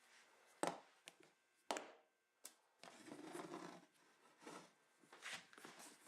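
Handling noises on a bench: three sharp knocks in the first two and a half seconds, then a few spells of scraping and rustling, typical of a tool or parts being picked up and set down.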